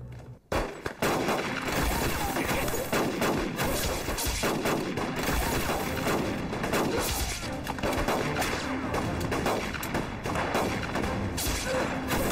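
Battle gunfire: dense, continuous rifle and machine-gun fire starting about half a second in.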